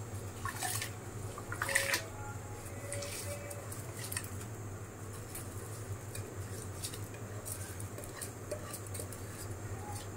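A few light clinks of kitchen utensils in the first two seconds, then a steady low hum with a faint hiss.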